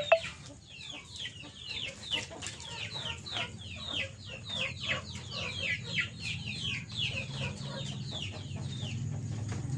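Siamese game chickens in a yard, with many short high chirps falling in pitch, several a second. A sharp click comes right at the start, and a low steady hum grows louder near the end.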